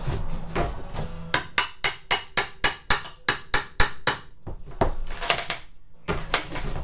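Hammer striking a flat pry bar to drive it under the glued top plywood layer of an RV camper floor: about a dozen quick metal-on-metal blows, roughly four a second, then a few scattered knocks and a scrape as the wood is worked loose.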